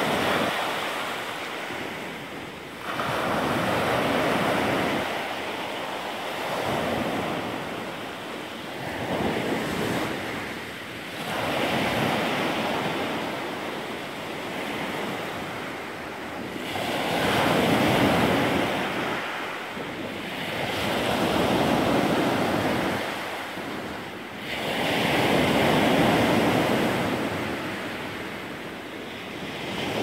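Sea surf breaking and washing up a pebble beach, swelling and ebbing in a slow rhythm of a wave every few seconds.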